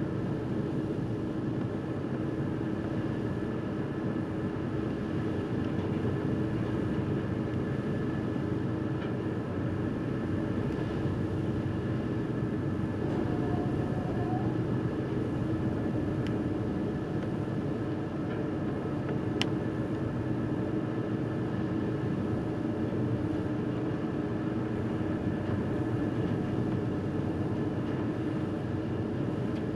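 Steady rumble and hum of a car ferry under way, its engines and machinery droning evenly with sea and wind noise over the open bow deck. A single sharp click sounds about 19 seconds in.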